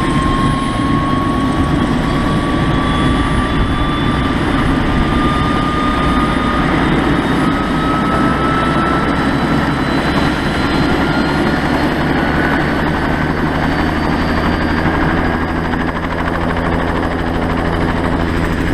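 Helicopter running up for departure: a turbine whine rises slowly in pitch over steady rotor and engine noise.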